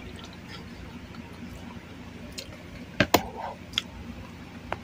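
A person eating, with soft wet mouth and chewing sounds. A few sharp clicks break in, the loudest pair about three seconds in.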